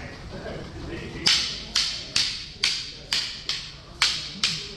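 Two rattan eskrima sticks clacking against each other in a partner reflex drill. Sharp wooden clacks start about a second in and come about twice a second, eight in all.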